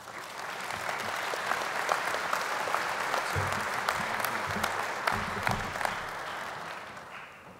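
Audience applauding, swelling in at once and dying away near the end.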